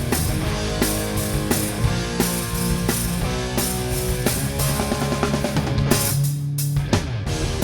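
Live hard-rock band playing an instrumental passage on drum kit, electric guitars and bass guitar, with steady drum hits. About six seconds in, the band stops for a moment, leaving a held low bass note, then comes back in together.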